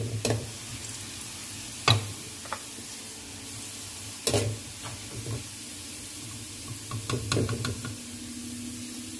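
Sliced onions sizzling in hot oil in a metal kadai as they fry to brown, stirred with a flat metal spatula that scrapes and clacks against the pan several times, loudest at about two seconds and four seconds in. A low steady hum runs underneath.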